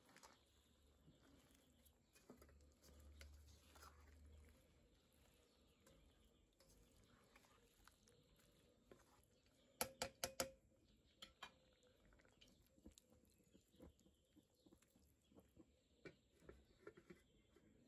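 Quiet clinks and scrapes of a spoon stirring a creamy chicken stew in an enamelled steel pan, with a quick run of four or five sharp taps about halfway through.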